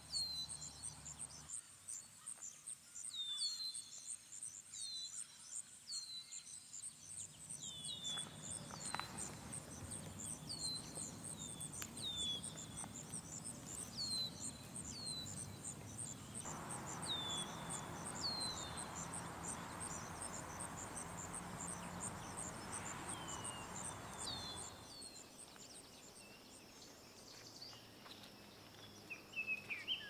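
Forest ambience: a high insect trill pulses steadily and rapidly, stopping near the end. Short falling chirps come every second or two, and a soft rushing hiss rises about halfway through and fades out before the end.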